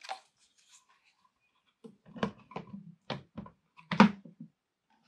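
Plastic figure bases knocking and clicking against each other and on a wooden tabletop as one diorama base is set down and fitted against another. A quick string of knocks, the loudest about four seconds in.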